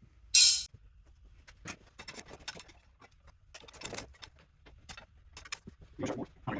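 Short sharp burst of noise about half a second in, followed by irregular clicking and light clattering of metal parts and tools being handled while a component is taken apart for scrap.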